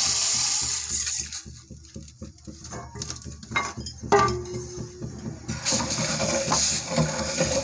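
Granulated sugar poured from a steel bowl into water in a steel pan, a rushing hiss for about the first second. Then a few light clinks and a short ringing note from the pan about four seconds in, and a steel spoon stirring the sugar and water, scraping the pan, in the last two seconds.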